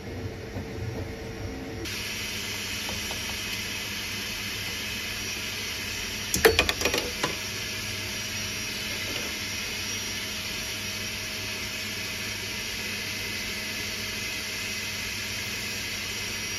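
Creality K1 Max 3D printer's cooling fans running with a steady hiss and faint hum, which comes in abruptly about two seconds in. A short clatter of knocks about six seconds in is the loudest sound.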